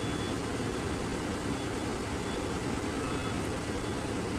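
Howo 371 truck's diesel engine idling steadily, a low, even rumble heard inside the cab.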